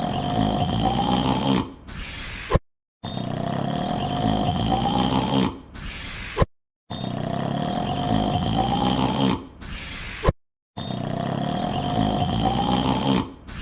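A man's long, drawn-out yawn that rises slowly in pitch over about two and a half seconds, trails off into a quieter tail and ends in a click. It repeats as a loop about every four seconds, with a short silent gap between repeats.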